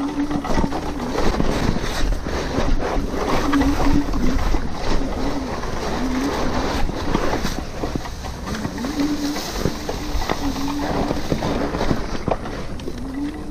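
RadMini electric bicycle being ridden: wind buffeting the chest-mounted microphone and tyre noise, with a low whine that wavers up and down in pitch in broken stretches and frequent small knocks and rattles from the ride.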